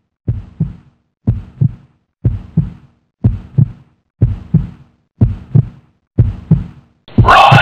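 Heartbeat sound effect: paired low thumps (lub-dub), about one beat a second, seven times with silence between. Loud rock music with guitar comes in near the end.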